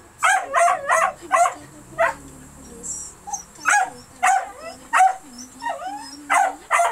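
A small pet animal crying out in a run of short, high-pitched calls, about a dozen over several seconds, some of them bending in pitch.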